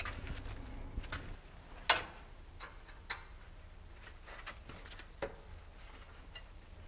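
Irregular metallic clicks and clinks of a hand wrench on steel bolts at a road roller's drum side plate, the loudest about two seconds in.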